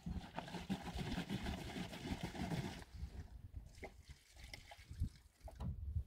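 Water being poured into a plastic jerrycan through a cut-off plastic bottle, splashing and trickling for about three seconds, then quieter with scattered knocks of the plastic containers being handled.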